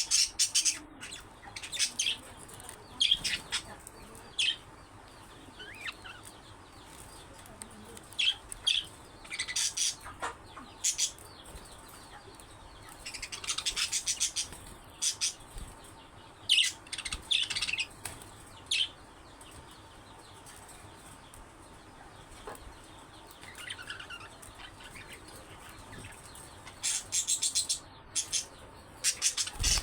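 Budgerigars chirping and chattering in scattered bursts of high, quick calls, with a quieter stretch about two-thirds of the way through.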